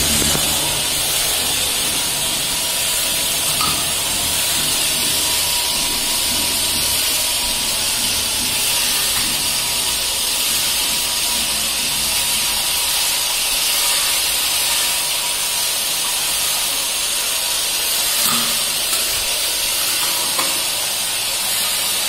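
Homemade dish-washing machine running: a steady hiss throughout, with a low motor hum that fades away over the first several seconds. A few faint knocks come later on.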